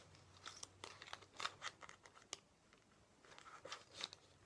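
Faint scattered clicks and crinkles of hands handling a plastic pass card, its holder and a lanyard clip, with a short quiet gap in the middle.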